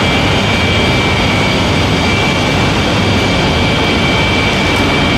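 Gypsum board PVC laminating machine running: a loud, even mechanical noise from its gear motors and roller conveyor, with a thin high whine on top.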